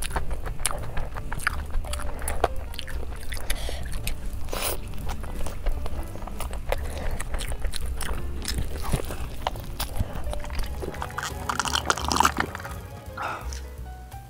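Close-up eating sounds of a person biting and chewing sauce-coated fried chicken pulled from melted cheese, with many crisp crunches, over steady background music.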